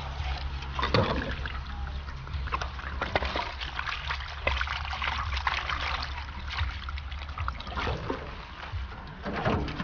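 Water splashing and sloshing in quick, irregular strokes as raw chicken is washed off in water.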